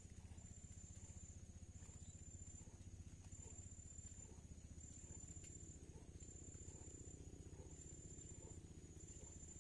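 An insect calling in a thin, high steady tone, in pulses just under a second long that repeat about once a second, over a faint low rumble.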